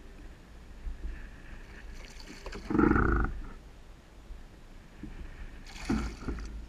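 Hooked largemouth bass splashing at the surface beside a kayak, over a steady low rumble of wind on the microphone. There is a loud burst about three seconds in and a splash near the end.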